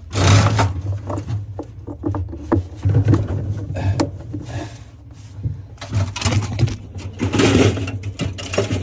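Irregular knocks, scrapes and rustling of handling, over a low steady hum.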